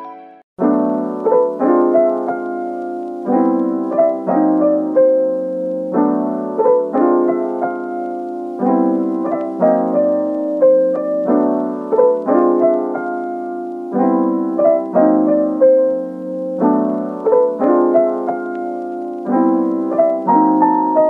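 Background music: a gentle piano tune, with chords struck about once a second under a simple melody. It begins about half a second in, after a brief gap.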